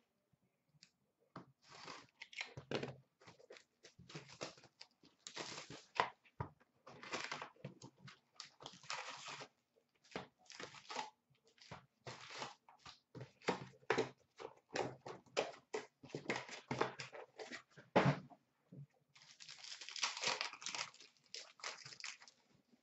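A hockey trading-card box and its card packs being opened by hand: irregular rustling, crinkling and tearing of wrappers and cardboard, with a longer stretch of tearing a little past three-quarters of the way through.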